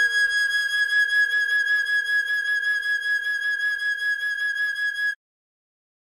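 Recorder holding one long high A-flat with a slight vibrato over a soft, low accompanying note that fades away. The recorder note cuts off abruptly about five seconds in, leaving silence.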